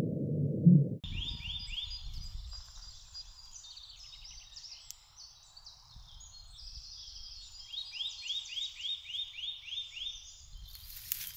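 Songbirds singing, several at once, one of them repeating runs of quick downward-sweeping whistled notes, over a faint low rumble. A low muffled rumble fills about the first second and cuts off, and a sharp click comes near the end.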